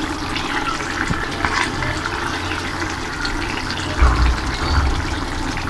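Cucumber and prawn curry simmering in its pot, small bubbles and pops crackling over a steady hiss. A couple of brief low thuds come about four seconds in.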